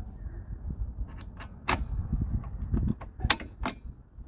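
Metal clicks and clinks of drum brake parts being fitted by hand: the brake shoes, spacer bar and handbrake lever knocking together, with a few sharp clicks about two, three and a half and four seconds in.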